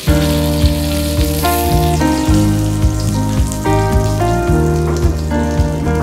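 Background music with a melody and a steady beat over the hiss and sizzle of bay leaves and whole spices frying in hot oil in a wok.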